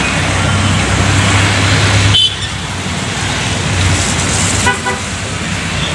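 Roadside traffic: the steady noise and low hum of passing motor vehicles, with a brief horn toot near the end.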